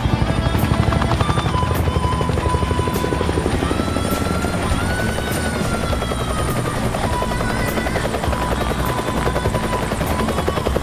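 UH-1 Huey helicopter rotor beating with a fast, even thud as the helicopter hovers low to land, with music beneath it.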